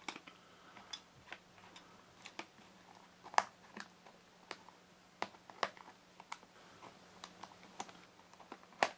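Scattered light clicks and taps of a packed, one-piece injection-moulded plastic bike tool pouch being handled and pressed closed. The loudest clicks come about three and a half seconds in and just before the end.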